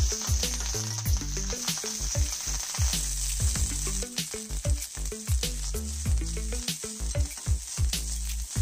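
Curry leaves, green chillies and whole seeds sizzling in hot oil in a wok, stirred with a steel spatula, with a steady high hiss. Background music with a deep bass beat plays over it.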